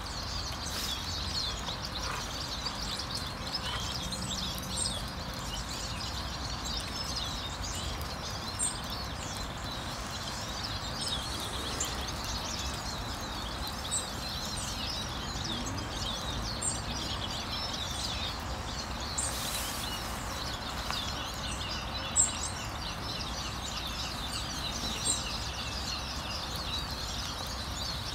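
Small birds chirping and twittering continuously over a steady outdoor background rumble, with a few brief louder ticks.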